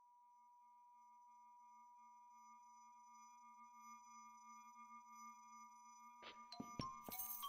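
A single steady electronic tone, pure like a sine tone, slowly swelling in level over a faint low hum. Near the end, clicks and then the bright, beat-driven start of the rap track come in.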